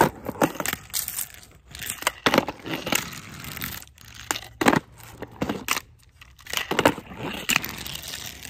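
Close handling noise: a run of irregular clicks, knocks, scrapes and rustles of small hard objects being picked up and moved about.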